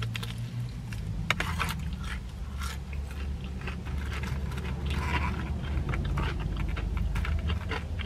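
A man biting and chewing crispy fried chicken, with many small sharp crunches and crackles from the breaded coating, over a steady low hum.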